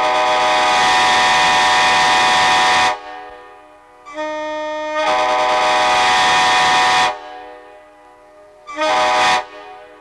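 Nathan Airchime K5LA five-chime train air horn, a 1980s ex-Amtrak unit roof-mounted on a pickup, sounding its chord in separate blasts. A long blast ends about three seconds in. A second starts softer at about four seconds, swells to full, and stops at seven. A brief toot comes near nine seconds. Each blast dies away with an echo.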